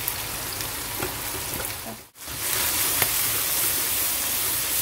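Chicken hearts sizzling in oil in a wok as blended tomato sauce is scraped in and stirred with a spatula, with a few light spatula taps. The sound cuts out briefly about two seconds in, then the sizzling comes back a little louder.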